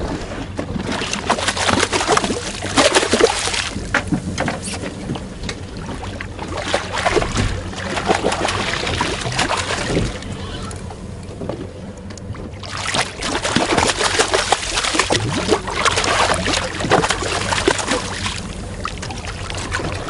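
Sea water sloshing and splashing against a small boat's hull, in uneven surges, as a hooked Atlantic bonito is drawn through the surface alongside.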